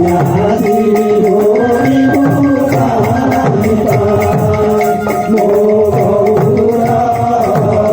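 Kirtan music without the lead voice: a held melody, hand-drum strokes whose pitch falls, and small cymbals keeping a steady beat.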